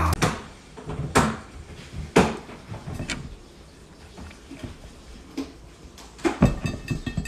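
A glass jar knocking and bumping on a wooden tabletop as a kitten climbs into it: a few separate knocks about a second apart, then a louder bump followed by a quick run of taps near the end.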